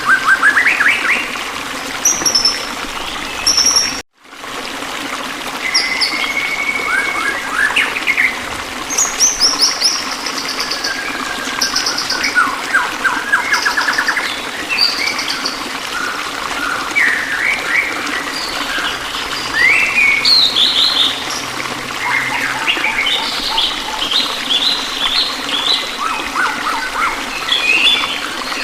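Several small songbirds chirping and singing in short, fast trills and rising notes, over a steady background of running water. The sound cuts out for a moment about four seconds in.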